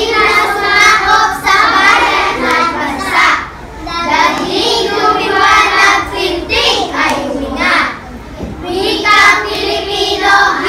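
A group of children voicing a piece together in unison, phrase after phrase, with short breaks between phrases.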